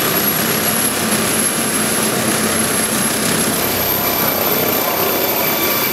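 Air-ambulance helicopter running on its helipad: loud, steady rotor and turbine noise, with a thin high turbine whine that steps up in pitch about halfway through as the engines power up for lift-off.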